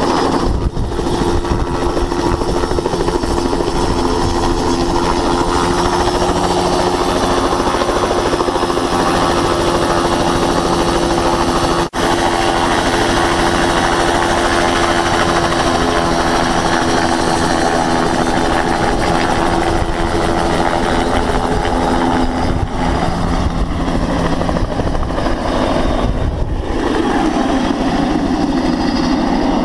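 Two-blade crop-spraying helicopter running close by with its rotor turning, a steady engine tone under the rotor noise while it sits beside the chemical tender being reloaded. Late on, the steady tone gives way as it lifts off and flies away.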